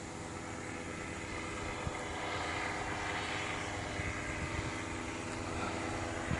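Powered paraglider trike's engine and propeller running overhead with a steady drone, growing a little louder about two seconds in.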